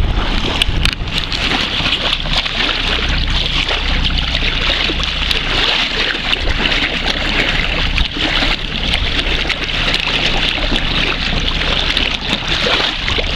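Sea water lapping and splashing right at the microphone held at the surface, a steady hiss sprinkled with small splashy ticks, with wind rumbling on the microphone underneath.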